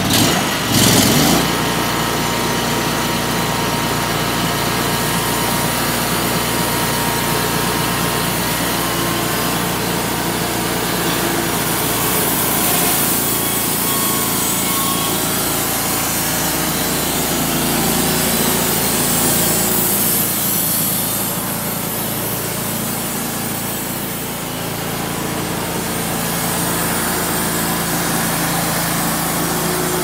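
Homemade band sawmill's gasoline engine running steadily under load as its band blade saws through a walnut log, with a short louder burst about a second in.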